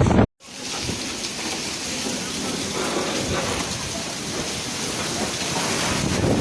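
Heavy rain in a windstorm: a steady hiss that starts after a sudden break about a quarter of a second in and grows a little louder toward the end.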